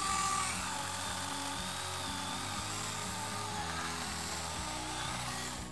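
Saker 20-volt cordless mini chainsaw cutting through a small branch: a steady electric-motor whine with the hiss of the chain in the wood. The whine drops in pitch about half a second in as the saw loads up in the cut, holds there and stops just before the end.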